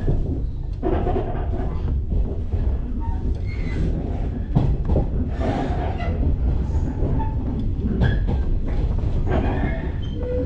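Electric local train pulling away from a station, heard from inside the passenger car: a steady low rumble of running gear and wheels on rail, with scattered knocks and clacks from the track.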